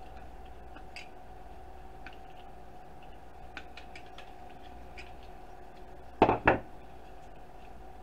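Small clicks and snips of hand tools working on circuit-board wires, then two loud clacks in quick succession about six seconds in, as metal pliers and cutters are set down on the wooden workbench, over a steady faint hum.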